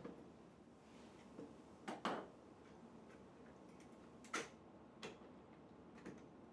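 Light clicks and knocks of a hand tool and gun parts being handled during shotgun stock assembly, about six scattered taps over several seconds.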